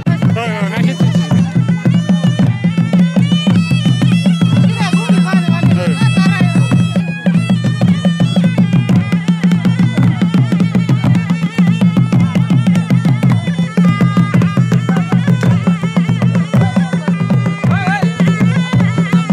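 Traditional folk music for dancing: a fast, steady drum beat under a high melody, over a constant low drone.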